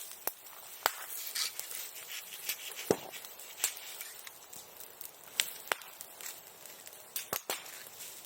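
Bonfire of old sericulture tools burning, with sharp irregular pops and cracks over a steady hiss; the loudest crack comes about three seconds in.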